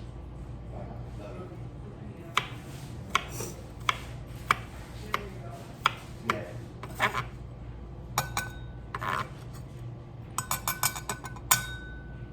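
Kitchen knife cutting on a cutting board, single cuts about every two-thirds of a second, then a quick run of clinks with a short ringing note, metal knocking against dishware.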